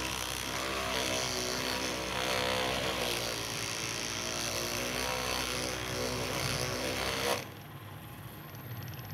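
Handheld percussion massage gun running against the leg with a steady motor buzz, then switching off abruptly about seven seconds in.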